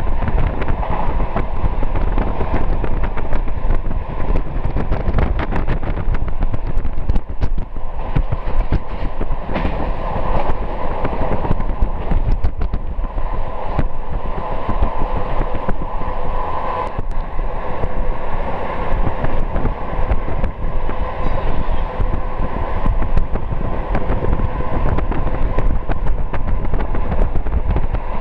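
Train running steadily at speed, heard from inside the carriage: a constant rumble of wheels on the rails, full of quick irregular clicks and rattles.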